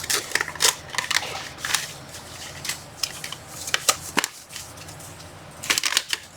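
Faucet repair kit's plastic packaging and small parts being handled: irregular crinkling and clicking, with a denser run of sharp clicks near the end.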